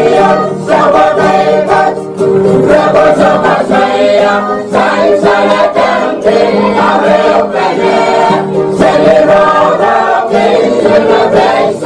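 Choral music, a group of voices singing sustained chords, played loud and without a break as the broadcaster's closing theme.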